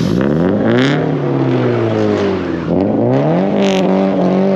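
A car engine being revved and held at high revs: the engine note drops over the first second, holds, then climbs again a little under three seconds in and stays up.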